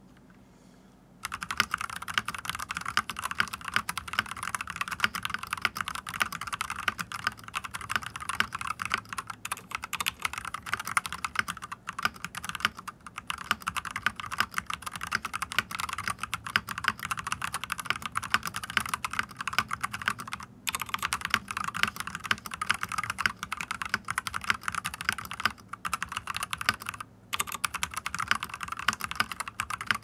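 Fast touch-typing at about 100 words a minute on an LTC NB981 Nimbleback mechanical keyboard with red linear switches and two-layer foam: a dense, continuous run of keystrokes. The keystrokes start about a second in and pause briefly twice in the last third.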